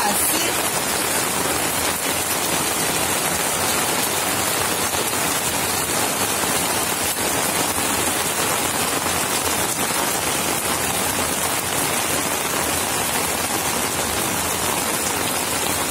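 Heavy rain falling steadily on a concrete rooftop, heard from under a cloth awning: an even, unbroken hiss.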